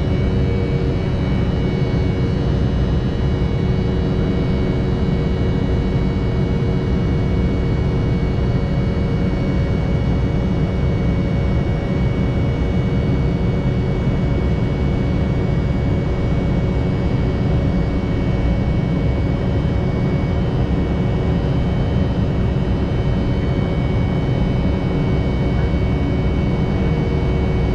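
Embraer E190's GE CF34 turbofan engines in flight, heard inside the cabin beside the wing: a steady low rumble with several constant whining tones above it.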